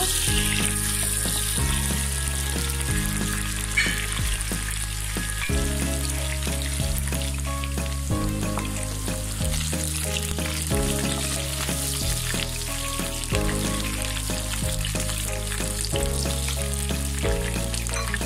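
Chunks of onion sizzling and frying in hot oil in a wok, stirred now and then with a wooden spatula. Under it runs background music with slow-changing low notes.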